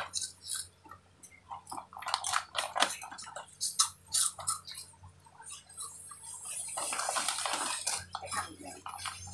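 Close-up eating sounds: chewing and biting with scattered small crackles and clicks, and a longer noisy stretch about seven seconds in.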